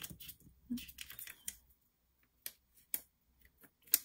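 Hands handling cardstock craft pieces: a short papery rustle about a second in, then a few sharp separate clicks and taps, the loudest near the end.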